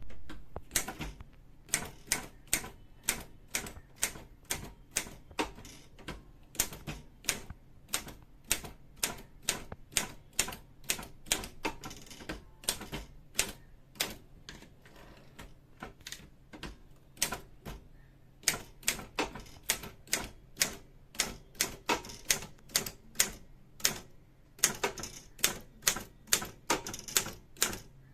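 Remington 2000 typewriter being typed on: a steady run of sharp key strikes, about two or three a second, with short pauses between runs.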